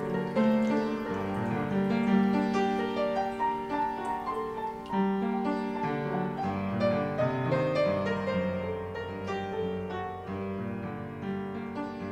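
Closing background music: piano playing slow, sustained notes, growing gradually quieter toward the end.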